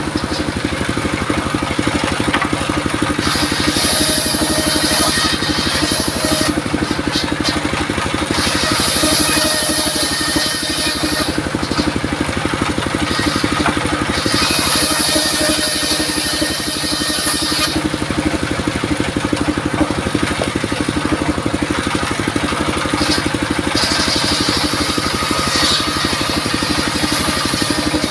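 Portable circular sawmill driven by a 28 hp diesel engine running steadily, its blade ripping lengthwise through wooden planks in several passes, each cut adding a high hiss over the engine.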